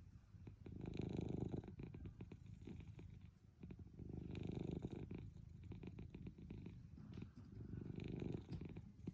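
Sleeping Munchkin cat purring, a steady low rumble that grows louder three times, about every three and a half seconds.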